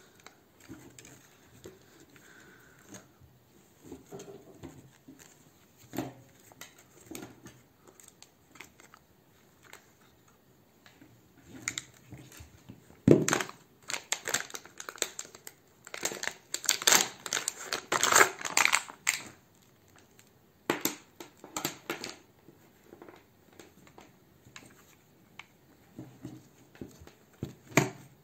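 Intermittent handling noises: rustling, crinkling and light clicks and knocks, busiest from about halfway through for several seconds.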